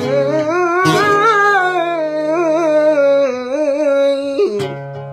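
Male flamenco singer drawing out a long ornamented melisma on one vowel, the pitch wavering and turning, over acoustic flamenco guitar. The voice stops about four and a half seconds in, leaving the guitar.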